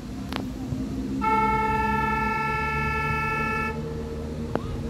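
A horn sounding one long, steady note for about two and a half seconds, starting about a second in and cutting off suddenly, with a sharp click just before it.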